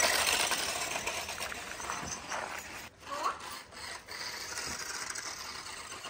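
RACENT 1:16 RC monster truck running across loose sandy dirt: a gritty scraping rush of its tyres spinning and throwing sand, loudest at the start and fading over the next few seconds.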